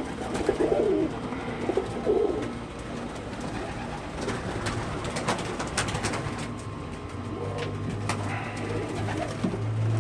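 Domestic pigeons cooing, with a warbling coo in the first couple of seconds and scattered light clicks and taps after it. A low steady hum comes in near the end.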